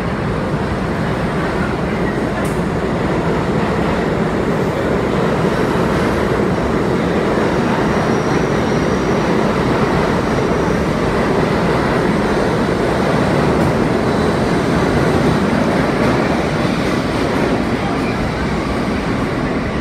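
R32 subway train pulling out of the station, its wheels and motors on the rails making a steady, heavy rumble. The noise grows louder through the middle as the cars move off and eases a little near the end.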